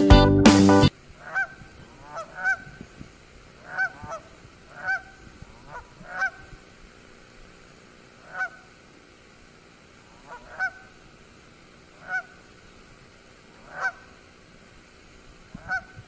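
Canada geese honking: about ten single honks, one every second or two, over a quiet background. Strummed guitar music plays for the first second and then cuts off.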